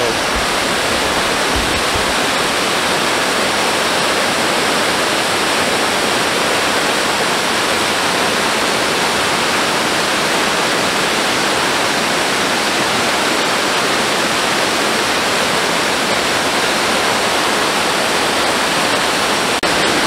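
Waterfall close by, a stream pouring over stepped rock ledges into a pool: a loud, steady, even rush of falling water.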